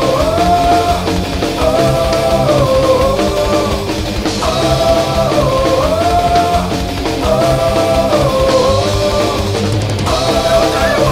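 Loud rock music, with a melodic phrase that repeats about every three seconds over a steady drum and bass backing.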